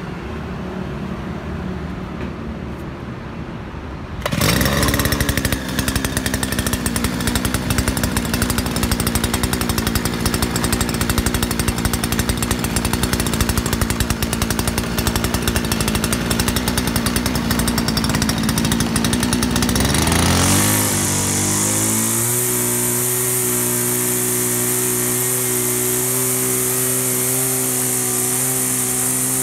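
Sumo 52cc two-stroke brush-cutter engine starting about four seconds in and running at low speed. About twenty seconds in it speeds up with a rising pitch and holds a steady high-speed whine with a loud hiss as the trimmer head spins.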